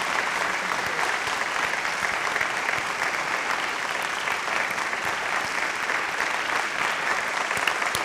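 A large audience applauding, a dense, steady clapping.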